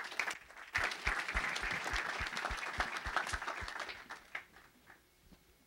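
Audience applauding; the clapping swells about a second in and dies away after about four seconds.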